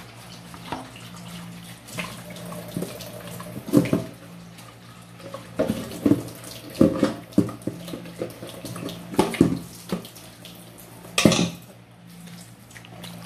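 Kitchen tap running into a stainless steel sink while a stainless steel pot is scrubbed and rinsed by hand, with repeated knocks and clatters of the pot against the sink, loudest about four seconds in and again near the end.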